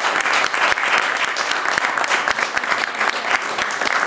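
Audience applause: many people clapping together in a dense, steady patter.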